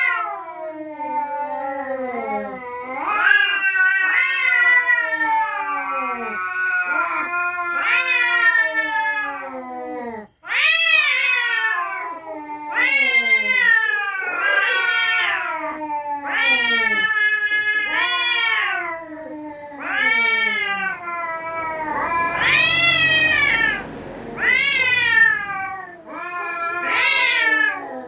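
Cats yowling at each other in a territorial standoff: long wavering wails that rise and fall in pitch. First comes one drawn-out wail lasting several seconds, then a run of shorter wails of a second or two each, one of them rougher.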